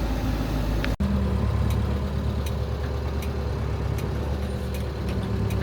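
Camper van driving, its engine running with a steady low hum under road noise; the sound drops out for an instant about a second in.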